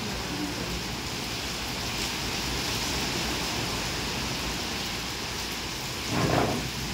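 Steady heavy rain, an even hiss of rain pouring down. A short louder swell sounds near the end.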